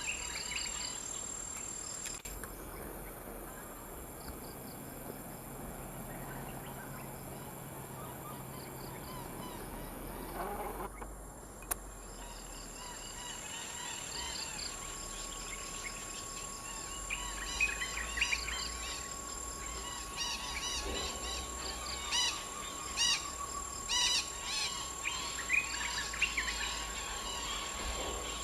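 A flock of wild red-breasted parakeets calling from a tree: many short chirping calls, mostly in the second half, over a steady buzz of insects.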